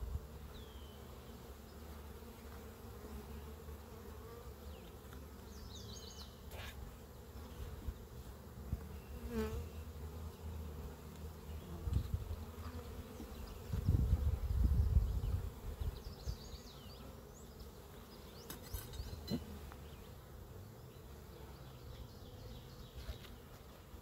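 Honey bees buzzing around an opened hive, a steady hum from the colony, with a brief low rumble a little past halfway.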